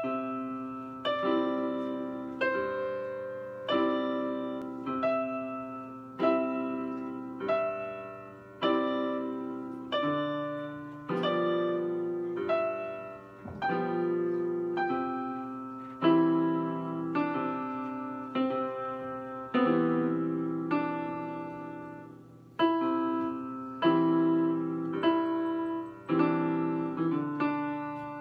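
Portable electronic keyboards on a piano sound playing a slow piece in struck chords, a new chord about every second, each left to fade before the next.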